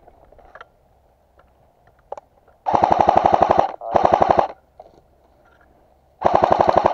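Airsoft rifle firing on full auto in three rapid bursts: a burst of about a second, a shorter one straight after, then another near the end.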